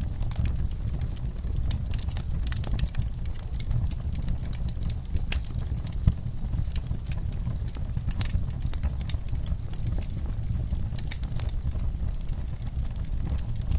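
Wood fire crackling in a fireplace: irregular sharp snaps and pops over a steady low rumble, the loudest pop about six seconds in.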